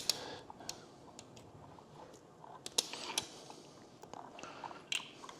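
Scattered sharp metal clicks and clinks of loose bolts being picked out with a magnet; the loudest comes right at the start, with a few more about three and five seconds in.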